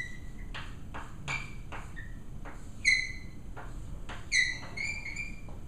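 Chalk writing on a blackboard: a run of quick taps and scraping strokes, with several short, high squeaks of the chalk, the loudest about three seconds in and another about four and a half seconds in.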